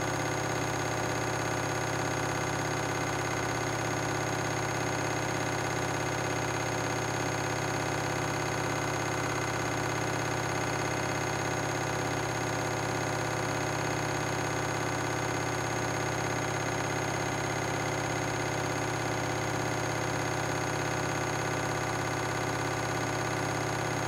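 Front-loading washing machine on a 1200 rpm spin, its drum spinning at a steady high speed: an even whine and hum that does not rise or fall.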